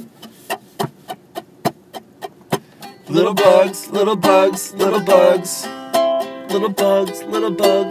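Acoustic string instrument strummed in a steady rhythm: short muted strokes at about three a second, then ringing full chords from about three seconds in.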